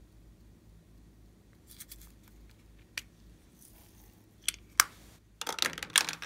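A few sharp, separate clicks of a small plastic toy case being handled and opened, then, about five seconds in, a dense burst of clicking and rattling as small plastic pieces are picked up and handled.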